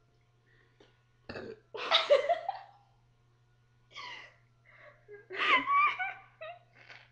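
Loud human burps with bursts of laughter between them; the loudest comes about two seconds in.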